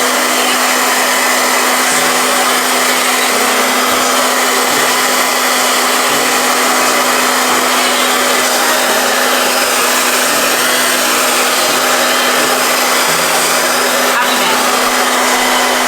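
Handheld hair dryer blowing steadily, a loud rush of air with a steady motor hum, switched off right at the end.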